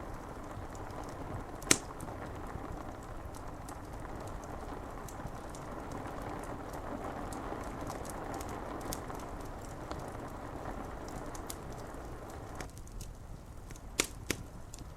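A wood fire crackling with scattered sharp pops over a steady hiss of rain on a window pane. One loud pop comes about two seconds in and two more close together near the end, and the hiss thins a little before them.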